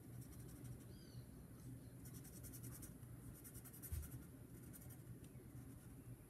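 Felt-tip marker scratching on paper in quick short strokes, colouring in small patches, faint, with one soft thump about four seconds in.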